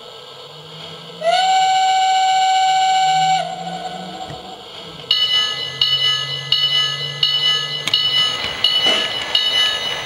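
Lionel Lines 4-4-2 LionChief steam locomotive's RailSounds sound system. A single steam whistle blast of about two seconds sounds first. A bell then rings repeatedly, and near the end steam chuffing starts as the locomotive pulls away.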